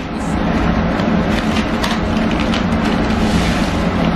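Background music, with the crinkle of wrapping paper being handled and torn by a toddler.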